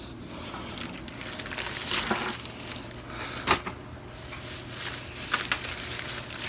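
Handling noise: a few short knocks and rustles as things are picked up and moved about, over a steady low hum.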